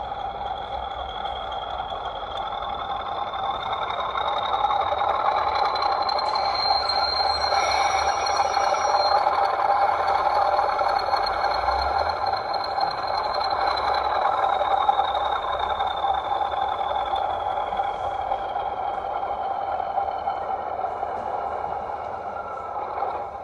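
Class 40 diesel locomotive sound file played through a model locomotive's ESU sound decoder and speaker: the English Electric engine running with its high turbocharger whistle. The whistle rises and grows louder as the engine notches up over the first few seconds, holds, then slowly falls away.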